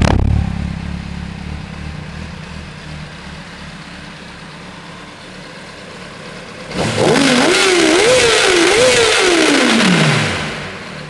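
Honda CBR600RR's 599 cc inline-four on its stock exhaust, falling back to idle from a rev, idling, then blipped hard about seven seconds in: the revs rise and fall three times before dropping back to idle. Heard close to the exhaust outlet, somewhat distorted.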